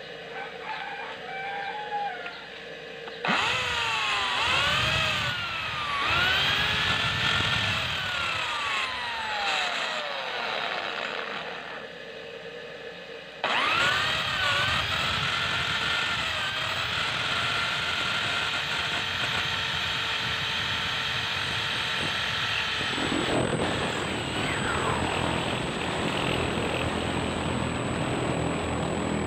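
Electric hand drill boring into steel angle iron with a twist bit: the motor whine rises and falls in pitch as the trigger is worked. It starts suddenly about three seconds in, drops off briefly near the middle, then runs on steadily, turning rougher and noisier in the last part.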